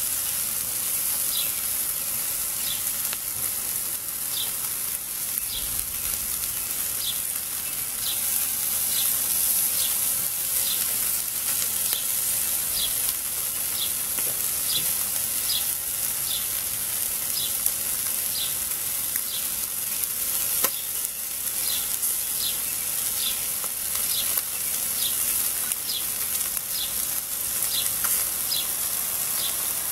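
Chicken pieces sizzling over charcoal on a kettle grill, a steady high hiss. A short high chirp repeats about once a second alongside.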